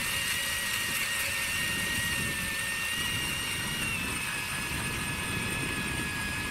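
Power ice auger drilling a hole through the ice: a steady motor whine whose pitch dips slightly about four seconds in.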